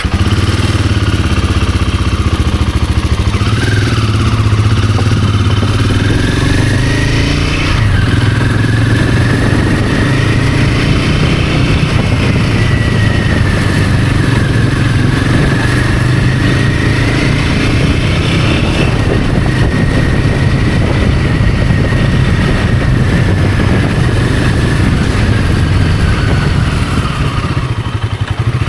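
Royal Enfield Himalayan 450's single-cylinder engine running on the move, the revs climbing, dropping suddenly about eight seconds in, then rising and falling gently.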